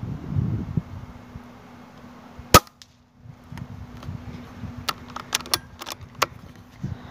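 Weihrauch HW100 .22 pre-charged air rifle firing once: a single sharp crack about two and a half seconds in. A run of sharp clicks follows a few seconds later.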